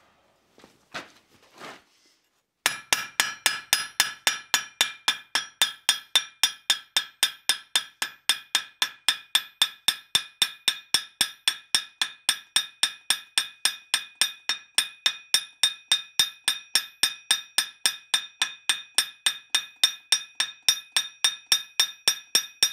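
Ball-peen hammer peening a hot steel rivet to set its head in a forged steel dish on the anvil: fast, even blows, about three to four a second, each with a bright metallic ring. The hammering starts about two and a half seconds in and keeps a steady pace.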